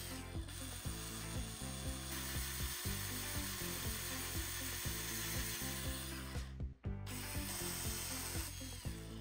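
Power drill boring through a carbon fiber landing gear leg, a steady high hiss of cutting, louder in the middle and breaking off briefly near the end. Background music with a steady beat plays underneath.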